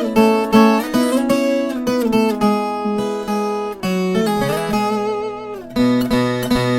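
Viola caipira music: a steel-strung Brazilian ten-string guitar playing a melody in plucked notes and strums, several notes sounding together.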